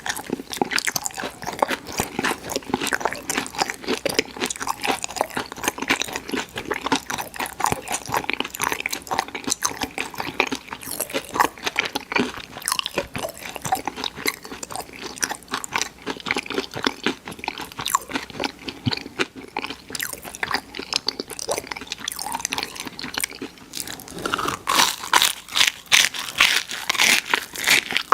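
A person biting and chewing crunchy fried food, a dense run of crisp crunches that grows louder and busier near the end.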